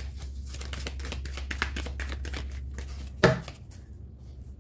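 An oracle card deck being shuffled by hand: a rapid run of soft card clicks, then one sharp tap about three seconds in.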